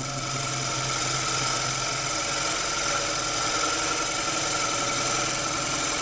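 Gouge cutting a spinning dry wood blank on a Record Power Coronet Herald lathe: a steady rasping hiss of wood being cut over the lathe's quiet running. It is a fairly hefty cut in dry wood, and the lathe keeps its speed without labouring.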